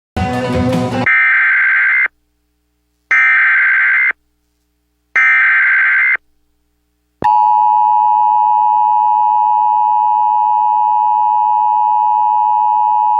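Emergency Alert System SAME header: three one-second bursts of screechy digital data tones, the first led by a second of harsh static. About seven seconds in comes the steady two-tone EAS attention signal, which marks the start of a new alert.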